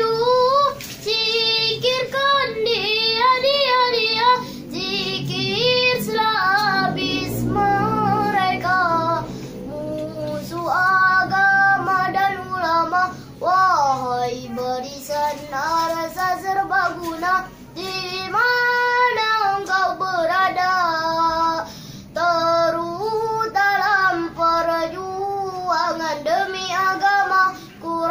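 A young boy singing solo in a high voice, long phrases with swooping, ornamented notes and short breaks for breath between them.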